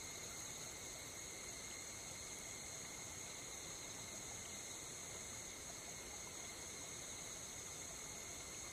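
A faint, steady chorus of night insects: several unbroken high-pitched trills at different pitches, over a low hiss.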